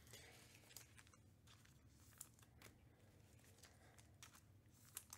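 Near silence: faint room hum with a few soft, scattered ticks and rustles of trading cards being handled.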